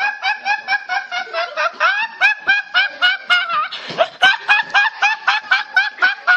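A teenage boy laughing hard in a fast, high-pitched run of short squeaky bursts, about five a second, with a gasp for breath about four seconds in.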